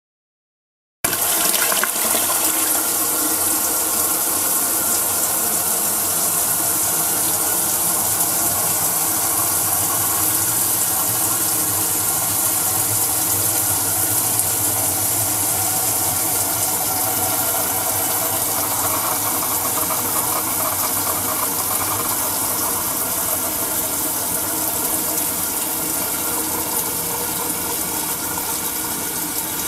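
Toilet flushing: a rush of water starts suddenly about a second in and runs on steadily as the cistern refills, slowly growing quieter.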